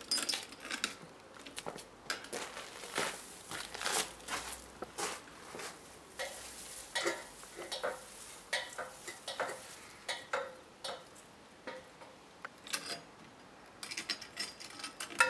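Irregular metallic clinks and knocks from an aluminium ladder being climbed and a Yagi antenna being handled against its metal wall-mount bracket.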